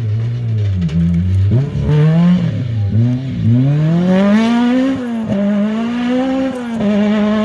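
Rally car engine revving hard on a dirt track. Its pitch falls as the car slows into a corner, then climbs as it powers out and away. Near the end it changes gear twice in quick succession.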